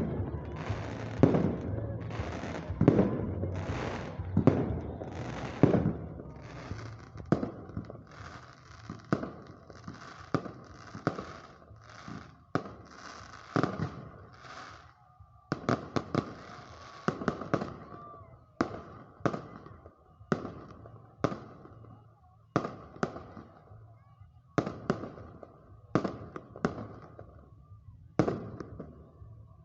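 Fireworks display: a steady run of sharp bangs from bursting shells, roughly one or two a second, with crackling between them. The bangs are densest and loudest in the first half and more spaced out later.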